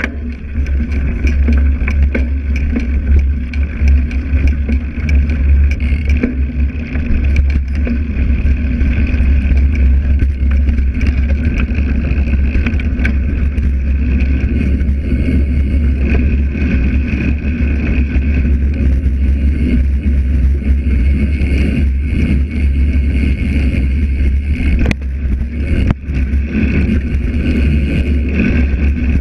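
Mountain bike rolling fast down a dirt forest trail, heard through an action camera mounted on the frame: a steady deep rumble of tyre and wind, with scattered clicks and knocks from the bike over bumps, one sharper knock near the end.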